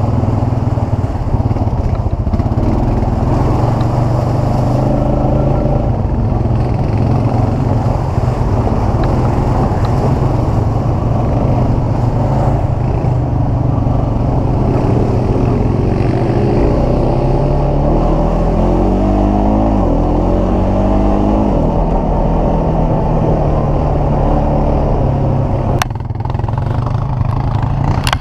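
ATV engine running under way, its pitch rising and falling with the throttle past the middle. A sharp click near the end.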